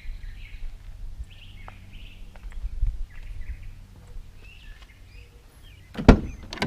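Birds chirping in short calls over a steady low rumble, with a few faint clicks. A loud sharp thump comes about six seconds in.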